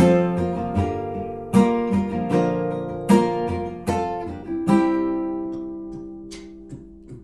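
Acoustic guitar strumming chords as a song's intro. The last chord, struck about five seconds in, rings out and fades, with a few soft strokes near the end.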